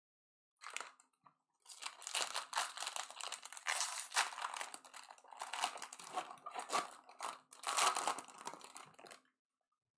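Foil wrapper of a baseball card pack being torn open, then the clear plastic wrap around the cards inside crinkled and pulled apart: a dense crackling that stops about a second before the end.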